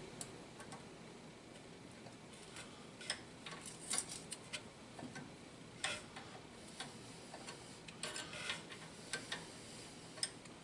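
Faint, irregular light clicks and taps of hand work on brake-line fittings, a brake line being fitted to a brass tee.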